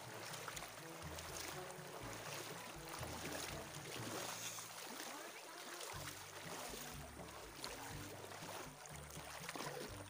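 Shallow river water splashing and churning around the legs of several people wading through it.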